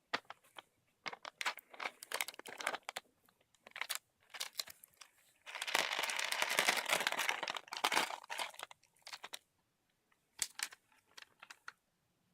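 Plastic snack packaging crinkling and crackling as a small snack tray is handled and opened, with a longer stretch of tearing and rustling about halfway through.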